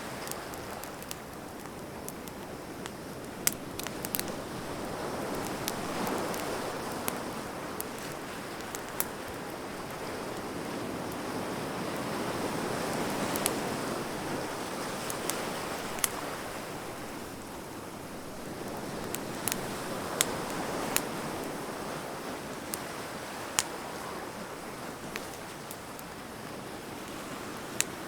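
Wood fire crackling with scattered sharp pops, over a wash of surf that swells and eases every several seconds.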